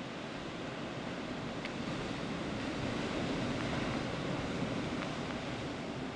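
Sea surf breaking against a rocky shore: a steady wash that swells to a louder wave crash in the middle, then eases.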